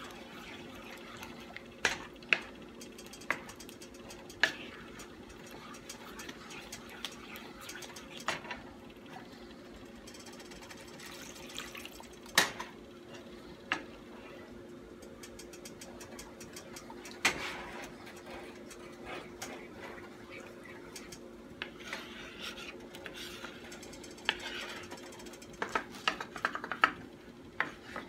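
Wooden spoon stirring thick white gravy in a nonstick skillet, with scattered sharp knocks of the spoon against the pan and a quicker run of knocks near the end, over a steady low hum. The gravy is being stirred to keep it smooth and free of lumps.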